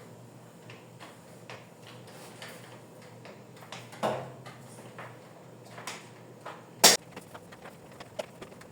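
Scattered knocks and clicks of things being handled and set down during kitchen cleaning, with one sharp knock about seven seconds in.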